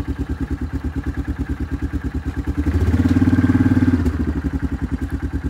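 Yamaha quad bike's engine idling with an even pulsing beat; about three seconds in it revs up briefly for a second or so, then drops back to idle.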